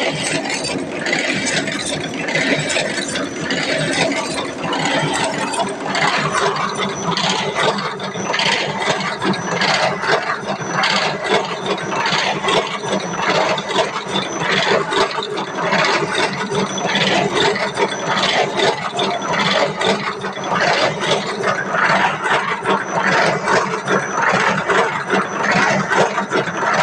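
Automatic clothes-hanger making machine running: a steady mechanical hum under a dense, rapid clatter of clicks, growing busier about six seconds in.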